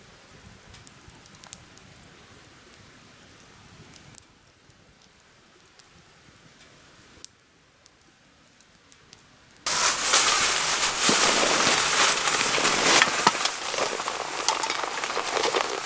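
Faint outdoor ambience with scattered small ticks, then about ten seconds in a wood campfire starts crackling loudly, a dense run of sharp pops over a steady hiss.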